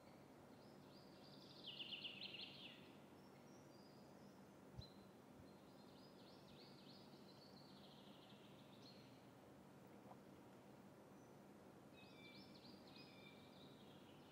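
Near silence: quiet room tone with faint bird chirping in the background, heard three times, the first the loudest. A single soft click about five seconds in.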